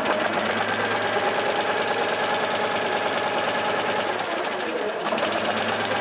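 Engine idling at about 1,200 to 1,400 rpm on the tachometer, a steady rapid firing rhythm; the sound dips briefly about four seconds in, then comes back.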